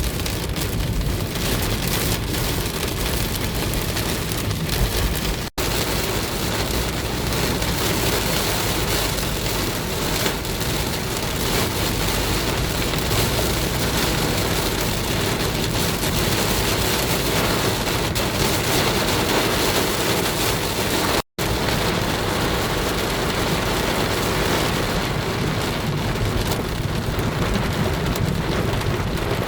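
Rain falling on a car, a dense, steady patter on the body. It cuts out for an instant twice.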